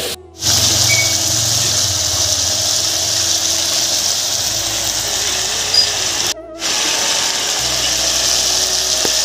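Chicken pieces frying in oil in a wok: a steady sizzle with a low hum underneath, cutting out briefly near the start and again about six seconds in.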